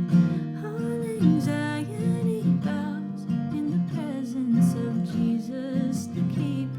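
Acoustic guitar strummed steadily, playing chords in a worship song with no lyrics sung.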